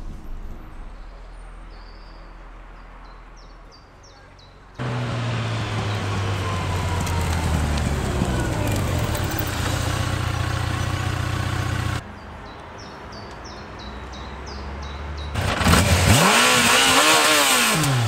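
Touring motorcycle engine running, coming in suddenly about five seconds in and cutting off abruptly around twelve seconds; near the end the engine is revved once, its pitch rising and falling. Birds chirp faintly in the quieter stretches.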